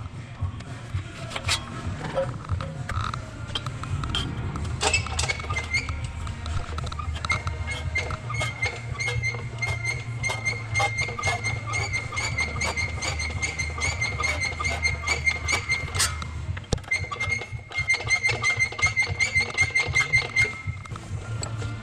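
Background music with a steady pulse and a repeating high note, with many short clicks through it.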